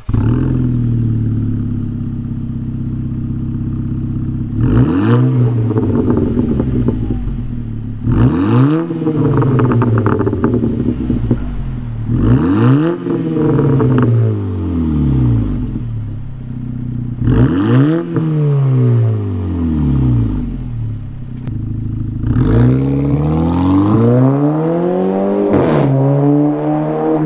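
Audi A4 2.0T TFSI turbocharged four-cylinder heard through a JHM 3-inch dual-exit performance exhaust. It starts, idles for a few seconds, then is revved four times, each rev climbing and dropping back to idle. Near the end comes one longer climb as the car pulls away, cut off by a sudden drop.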